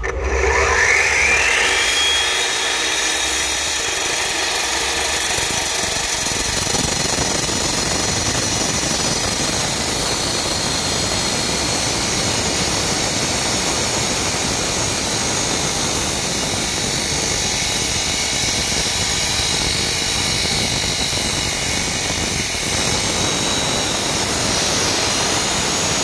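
Corded electric concrete-cutting saw with a diamond blade spinning up with a rising whine, then running steadily as it wet-cuts through a concrete slab.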